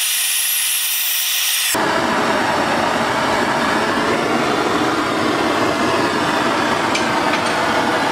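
Handheld gas torch hissing steadily as its flame heats a steel chisel blade. Just under two seconds in, the sound changes suddenly to a louder, deeper rushing noise that holds steady.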